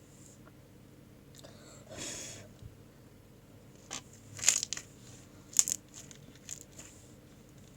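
Slime being squeezed and worked by hand: a short crinkly rustle about two seconds in, then sharp crackling pops, the loudest twice around the middle.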